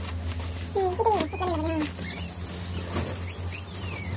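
Newborn puppies whimpering: a wavering cry about a second in, then a few short high squeaks that fall in pitch, over a steady low hum.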